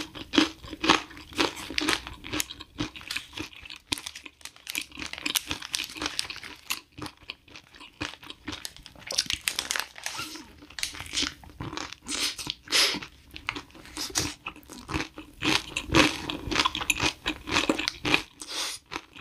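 Close-miked crunchy biting and chewing of a burger: wet, crisp crunches coming in irregular runs, pausing briefly now and then.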